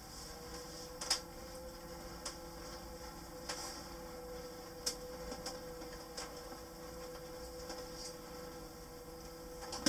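Electric drive of an EasyMile EZ10 driverless shuttle bus whining at a steady pitch while it cruises slowly, heard from inside the cabin, with a few light clicks. The whine dips in pitch at the very end as the shuttle begins to slow.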